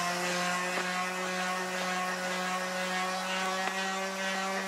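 Handheld electric sander running at a steady speed, held against a steel slip-clutch plate to grind off burnt friction-disc material and rust; an even, steady motor hum.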